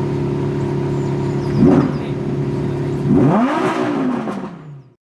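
Lamborghini Urus Performante's twin-turbo V8 with Akrapovič exhaust running at a steady idle, blipped once briefly about a second and a half in, then revved harder about three seconds in, the pitch climbing and then falling away as the sound fades out.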